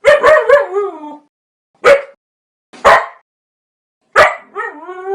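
A dog barking: a quick run of three or four barks that trails off into a falling whine, then two single barks about a second apart, and near the end one more bark followed by a long rising howl.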